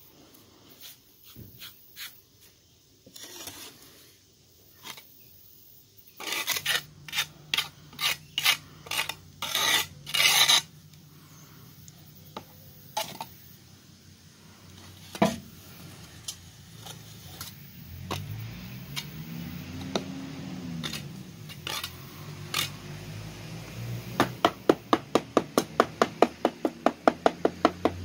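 Steel trowel scraping and smoothing wet cement, in strokes that come thickest a few seconds in. Near the end comes quick, even tapping, about four taps a second, with a deep hum rising and falling in the middle.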